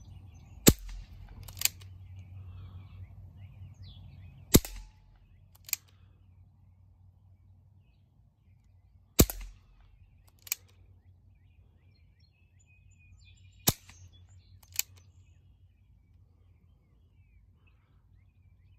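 Four shots from a BARRA 1858 CO2 BB revolver, sharp cracks about four and a half seconds apart, each followed about a second later by a fainter click.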